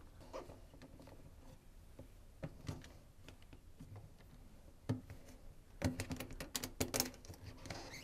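Washing machine door seal and its clamp band being worked into the groove by hand and with a flathead screwdriver: faint scraping and scattered clicks, with a quick run of clicks and taps near the end.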